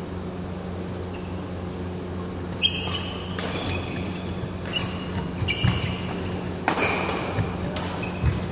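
Badminton rally: rackets striking a shuttlecock about six times, roughly a second apart, each a sharp crack, some followed by a brief high ring, echoing in a large hall over a steady low hum.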